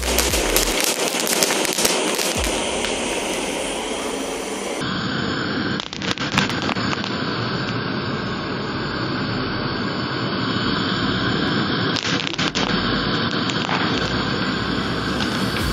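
Popcorn kernels popping on a waffle-iron plate under the steady hiss of a gas torch. The pops come thick and crackling for the first few seconds, then the sound changes abruptly and only a few scattered pops stand out over the hiss.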